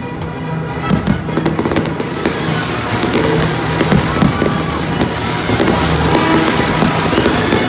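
Fireworks display: shells bursting and crackling in a rapid, continuous barrage, with the show's music playing underneath.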